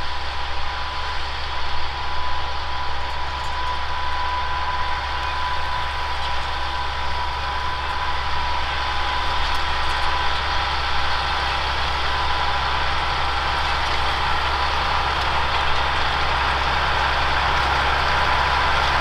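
Tractor engine running at a steady speed, with a thin steady whine over the low engine hum.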